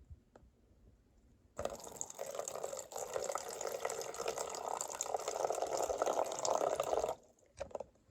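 Water poured into a container, a steady stream filling it, starting about one and a half seconds in and stopping about a second before the end.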